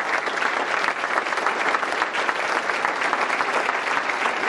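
Audience applauding steadily: many people clapping at the close of a speech.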